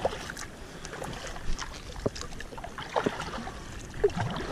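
Kayak paddle strokes in the water: splashes and drips, with short sharp taps roughly once a second.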